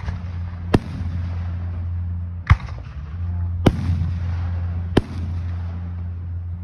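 Aerial fireworks shells bursting overhead: about five sharp bangs at irregular gaps of roughly one to one and a half seconds, over a steady low hum.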